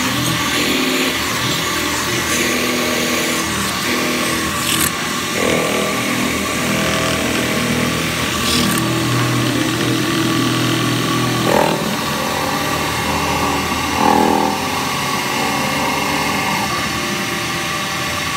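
CNC metal spinning machine running, its spindle turning a steel workpiece on the mandrel with a steady mechanical whir. It gets briefly louder twice, past the middle.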